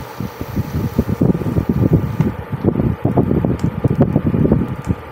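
Plastic spoon stirring a wet tuna-and-cabbage patty mixture in a stainless steel bowl: quick, irregular scraping strokes against the metal, several a second.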